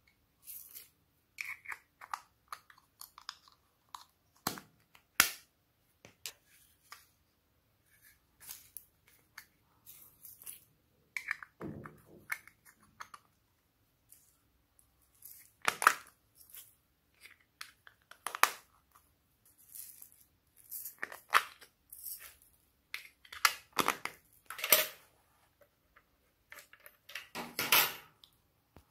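Hands handling small plastic containers and packaging over a glass dish of slime, making scattered rustles, crinkles and clicks, with one sharp click about five seconds in. Small beads are tipped from a plastic scoop into the dish near the start.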